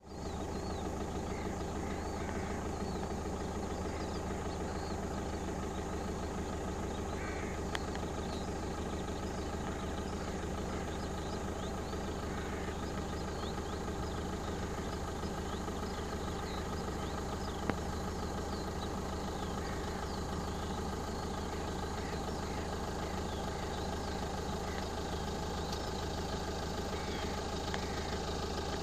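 Steady low engine hum, as of a vehicle idling, with faint short high chirps scattered through it and two brief clicks, one about eight seconds in and one a little before halfway.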